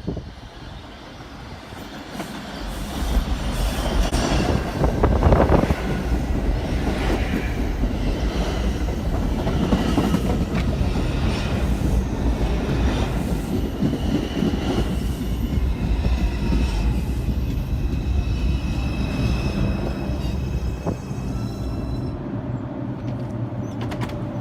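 New York City Subway R142 train running through the station on the 5 line. Its rumble builds over the first few seconds and then holds, with high wheel squeal through the middle stretch.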